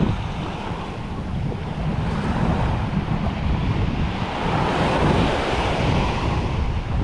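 Small waves washing onto a sandy beach, one wash swelling louder about halfway through, with wind buffeting the microphone in a low rumble.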